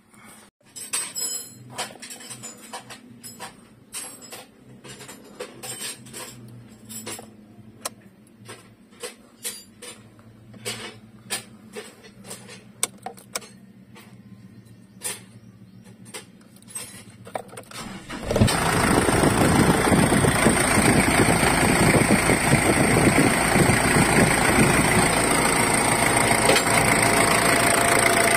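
Scattered clicks and knocks, then about two-thirds of the way in the Ford Everest's diesel engine starts abruptly and settles into a steady idle with diesel clatter. The engine now starts after its glow plugs were replaced.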